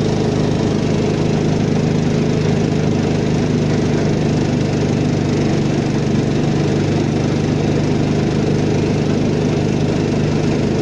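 Peque-peque long-tail boat's small engine running steadily under way, an even, unchanging drone.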